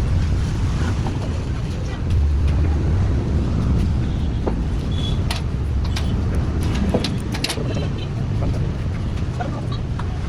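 A steady low mechanical rumble that swells slightly about two seconds in, with scattered light clicks and taps on top.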